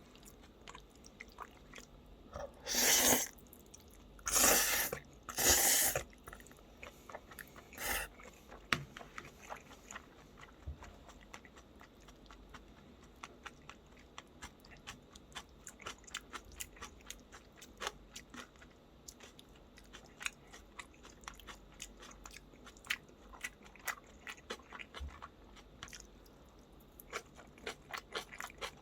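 A person chewing and crunching food close to the microphone, eating gan-jjajang noodles with crunchy silbi kimchi. Three loud, rushing bursts of noise come a few seconds in and a shorter one a little later, then a long run of small wet clicks and crunches of chewing.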